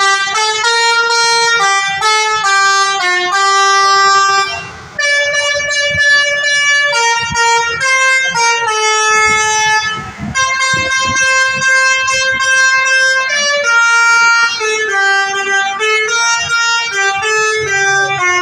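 Telolet bus horn, a set of multi-tone air horns sounding one note after another to play a tune, often two notes together. The tune breaks off briefly about five seconds in and again about ten seconds in.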